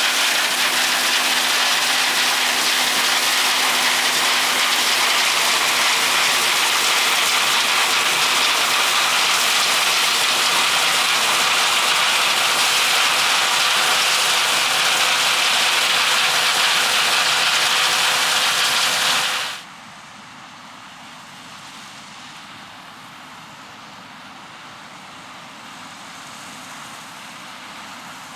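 Combine harvester running while shelling corn, a steady loud rushing with a faint hum. It drops abruptly to a much quieter rushing about two-thirds of the way through.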